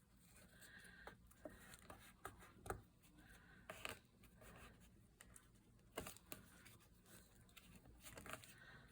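Near silence with scattered faint clicks and light rustles of paper being handled.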